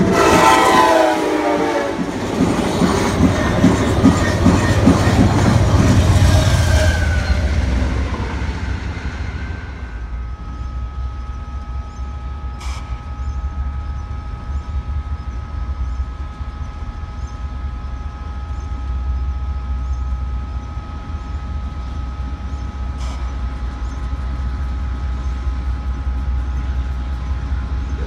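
Amtrak Cascades Talgo passenger train sounding its horn and rushing past at speed, the noise fading over about eight seconds. Then the low rumble of approaching Union Pacific diesel locomotives with a faint steady whine.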